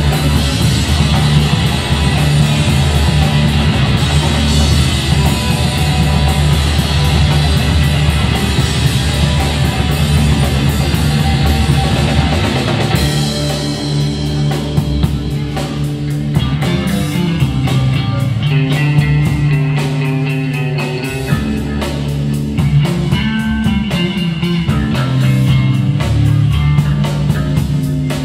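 Live rock band playing loud: electric guitar and drum kit. About halfway through, the dense full-band sound thins out into a sparser passage with distinct, regular drum hits.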